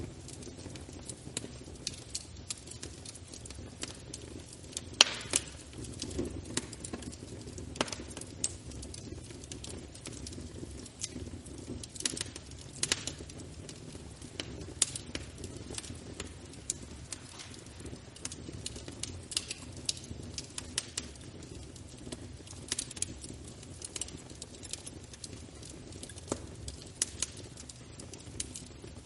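Wood fire burning in a fireplace: a steady low rumble of flames with irregular crackles and pops, one pop about five seconds in louder than the rest.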